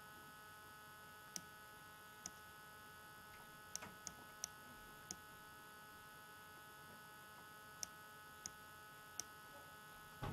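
Near silence: a steady electrical mains hum on the recording, with about nine faint, sharp clicks scattered through.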